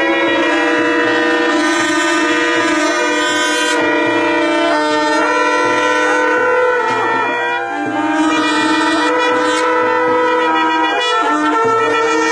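A group of long twisted shofars blown together in one sustained chorus of overlapping blasts at several pitches, dipping briefly about three-quarters of the way through before swelling again.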